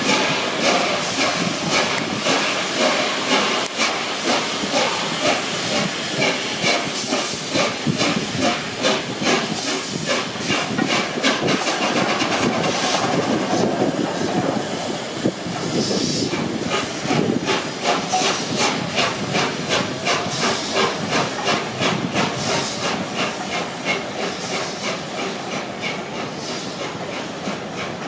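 Steam locomotive 60163 Tornado, a three-cylinder Peppercorn A1 Pacific, pulling its train away under power: a steady rhythm of exhaust beats with steam hissing.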